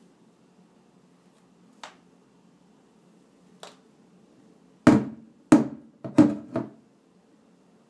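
Green glass bottle of supercooled sparkling water knocked down against a tabletop four times in quick succession, about half a second apart, after two faint clicks. The jolts set the below-freezing water icing up.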